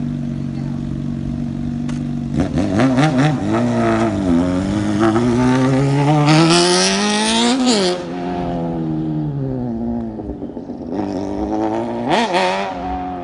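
Motorcycle engine running steadily, then revving and pulling away, its pitch climbing for a few seconds before dropping sharply at a gear change about eight seconds in. A short rev rises again near the end.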